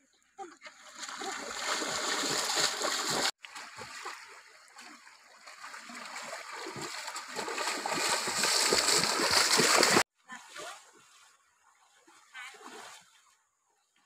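Water splashing and sloshing as people wade quickly through a shallow, rocky river, growing louder and then cutting off abruptly about ten seconds in; only faint scattered sounds follow.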